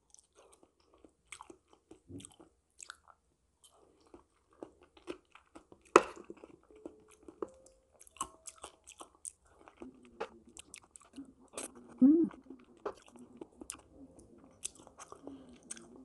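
Quiet close-up chewing of soft, ripe papaya: moist mouth sounds and many small clicks, with one sharp click about six seconds in. Near twelve seconds comes a short hummed murmur from the eater.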